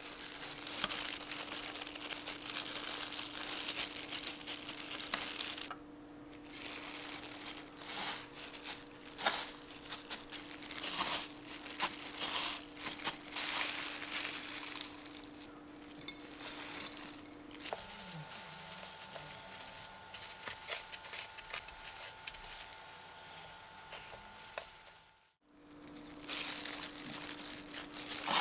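Disposable plastic gloves crinkling and panko breadcrumbs rustling and crunching as egg-dipped chicken tenderloins are pressed into the crumbs by hand, in short irregular scratchy bursts over a faint steady hum.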